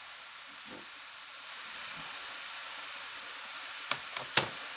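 Potato fries deep-frying in hot shortening: a steady sizzle. Two sharp clinks near the end.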